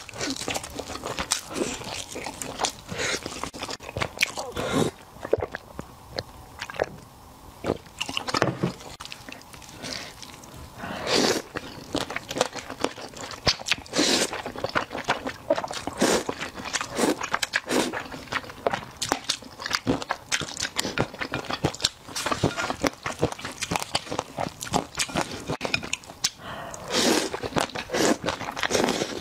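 A person eating close to the microphone: biting and chewing meat off a bone, then slurping and chewing spicy sauced noodles with peanuts, with many small wet crunches and clicks and a few louder slurps.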